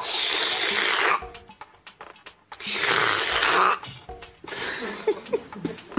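A man imitating loud slurping with his mouth, twice, each slurp about a second long.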